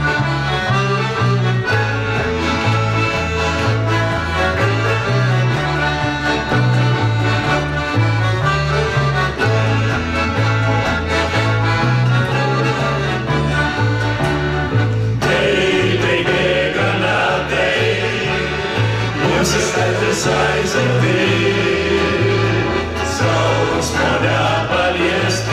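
Accordion and violin playing an instrumental passage over a steady two-note alternating bass. About halfway through, a men's vocal ensemble comes in and sings along.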